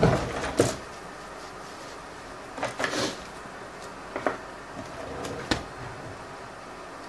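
A few light knocks and clicks of small tools and parts being handled on a work surface, scattered over a steady hiss. The loudest come right at the start and again about half a second later.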